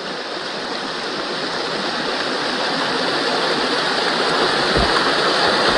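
Mountain stream water running and splashing over granite rocks, a steady rushing that grows gradually louder.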